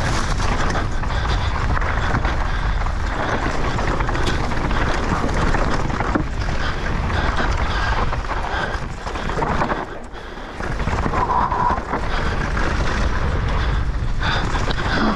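Mountain bike descending a dry, dusty enduro trail at speed, heard on an action camera: a steady rush of wind on the microphone and tyres on loose dirt, with the bike rattling over rough ground. The noise drops off briefly about ten seconds in, then picks up again.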